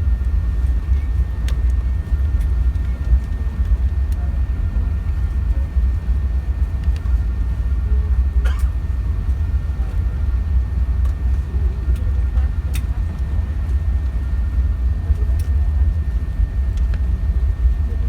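Steady low rumble inside an Airbus A380 cabin, the engine and airflow noise of the airliner heard from a passenger seat, with a few faint clicks over it.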